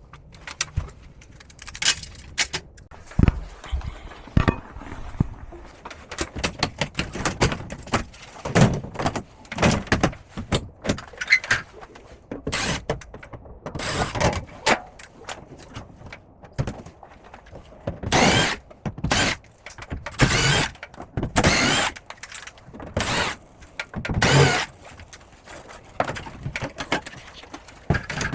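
Irregular clicks, knocks and short scraping bursts as the plastic panels and parts of a ceiling-cassette air conditioner are taken apart by hand and with tools. The bursts come thicker in the second half.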